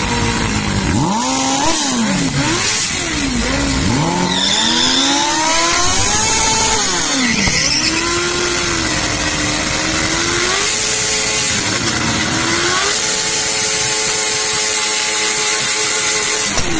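Motorcycle engines revved hard during a burnout, the revs swooping up and down over and over while the rear tyre spins and smokes on wet asphalt. About thirteen seconds in, one engine is held at a steady high rev.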